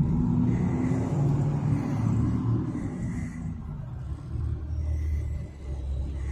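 A vehicle engine running with a low rumble. About four seconds in it settles into a steadier, deeper drone.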